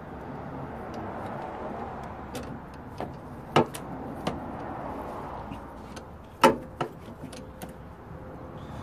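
Scattered clicks and knocks of a hand tool and engine-bay parts as the serpentine belt is worked off its pulleys by hand, over a steady background noise. About seven sharp knocks, the loudest about three and a half and six and a half seconds in.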